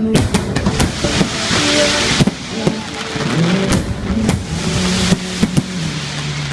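Aerial fireworks going off: a rapid, irregular series of sharp bangs, with a dense crackling shower about a second in. A song plays underneath.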